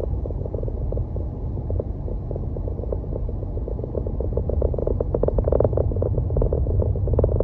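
Low rumble of a car in motion, with a rapid, irregular rattling crackle over it that grows louder about five seconds in.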